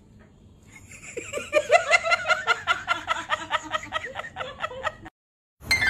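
Rapid, rhythmic laughter of a person, about five or six 'ha's a second, starting about a second in and cutting off abruptly near the end.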